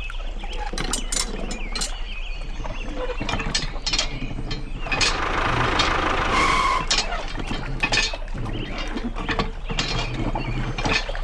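Irregular mechanical clicking and clattering, with a rushing hiss and a steady two-note tone from about five to seven seconds in.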